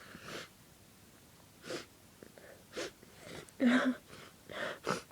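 A person's short breaths in, then one loud voiced sneeze about three and a half seconds in, followed by quick breaths; the sneeze is brought on by sniffed pepper.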